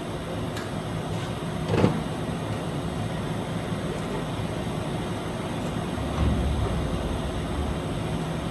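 A shop press running steadily with a low mechanical hum while new bearings and seals are pressed onto a telehandler axle trunnion. There is a sharp metallic knock about two seconds in and a heavier low thump about six seconds in.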